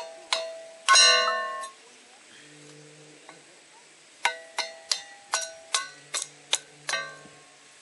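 Small hatchet knocking into dry firewood to split it into kindling: sharp knocks, each with a short ringing note from the struck wood. A few strikes come near the start, the loudest about a second in with a longer ring, then a quick run of about ten taps a few seconds later.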